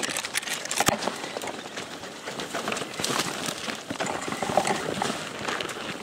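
Leaves and branches rustling and twigs crackling as someone pushes through dense brush on foot, with footsteps; one sharp crack about a second in.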